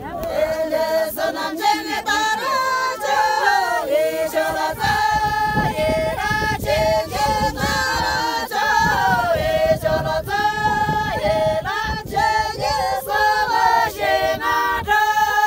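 A group of women singing together without accompaniment, their voices moving in unison through long held notes that slide between pitches.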